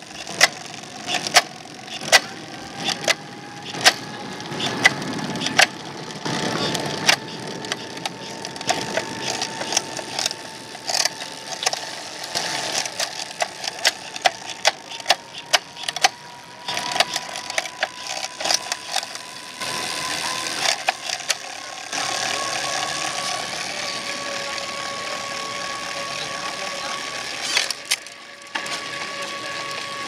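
A road bike's chain drivetrain turning a direct-drive trainer, giving a steady whine that slowly rises in pitch, with sharp clicks about once a second in the first half. About two-thirds of the way through the whine steps up in pitch and loudness, as at a gear change on the FSA K-Force WE electronic groupset.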